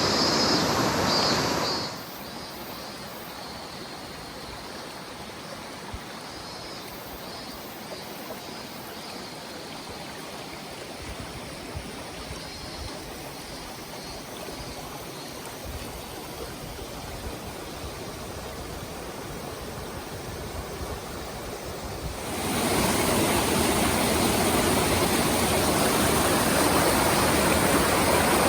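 Rushing mountain-stream water, loud at first, dropping to a much quieter rush about two seconds in, then loud again for the last six seconds.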